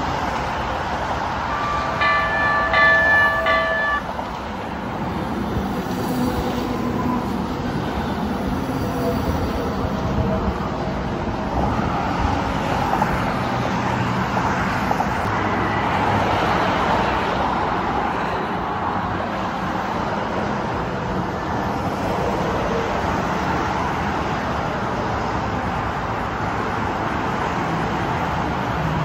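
LA Metro light-rail train sounding its horn in a few short blasts about two seconds in, then running into the station with its motors whining down in pitch and its wheels rumbling on the rails. It is loudest in the middle as it passes close by, over a steady wash of freeway traffic.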